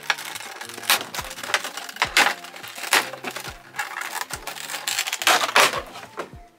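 Clear plastic blister packaging and wrap being handled and pulled apart, giving irregular sharp crackles and rustles, with background music and a steady beat underneath.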